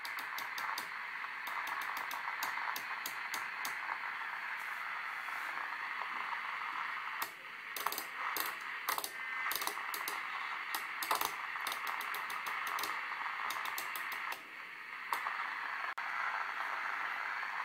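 Lafayette LMS-40 CB radio receiving in upper sideband: a steady band of static and garbled signal from its speaker, with runs of sharp clicks as the channel selector is stepped from channel to channel.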